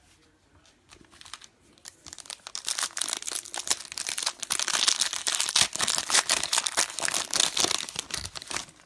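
Foil wrapper of a football trading-card pack being torn open and crumpled by hand: a few crackles at first, then dense crinkling from about two seconds in that stops just before the end.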